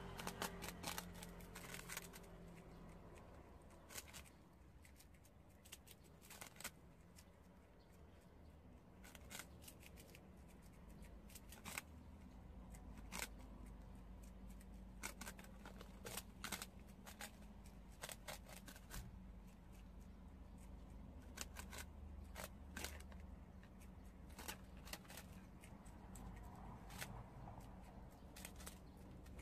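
Prairie dogs gnawing on puffed-rice crackers (ppeongtwigi): faint, crisp crunches and snaps that come in irregular little clusters, with short pauses between bites. A low steady hum sits underneath.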